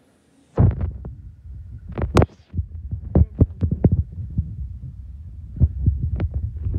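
Handling noise on a phone's microphone: a low rumble with irregular thumps as the phone is moved about. It cuts out briefly at the start.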